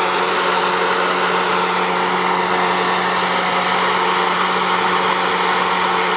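Engine of a cedar shingle mill running steadily, with a constant hum and a steady whir from the belt-driven machinery.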